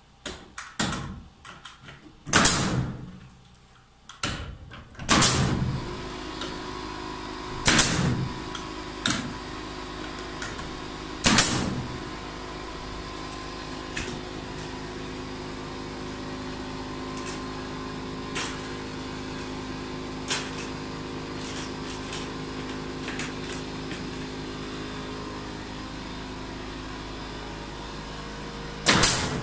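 Pneumatic nail gun driving 2.5-inch nails into wooden cross braces against floor joists, with sharp shots a few seconds apart and one more near the end. About five seconds in, the air compressor's motor starts and runs with a steady hum.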